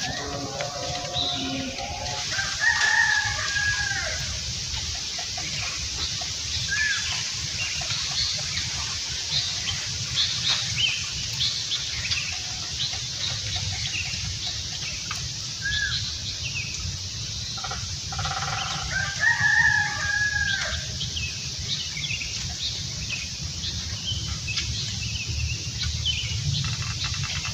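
A rooster crowing twice, about three seconds in and again near twenty seconds, over scattered small bird chirps and a steady hiss.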